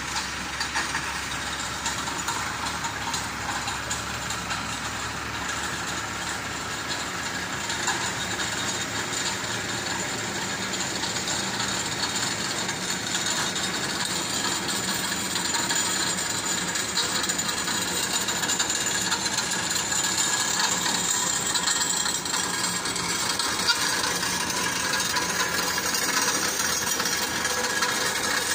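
Tow-truck engines and recovery machinery running, a steady mechanical noise that holds level throughout.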